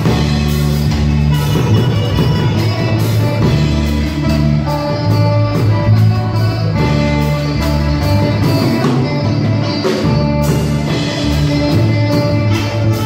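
Live instrumental rock from a small band: electric guitar, electric bass guitar and a Sonor drum kit playing together, loud and steady, with held bass notes under the guitar and a continuous drum beat.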